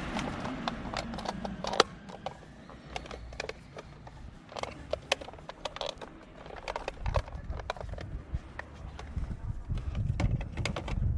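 Irregular small clicks and light knocks from hands handling parts, a few per second. Fading car noise in the first second or two.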